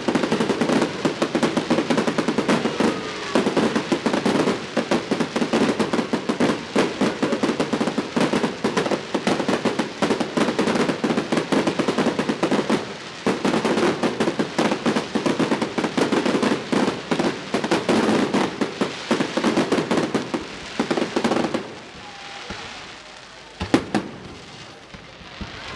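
Aerial fireworks: a dense, continuous barrage of rapid crackling and popping reports for about twenty seconds, which then thins out to two sharp single bangs near the end.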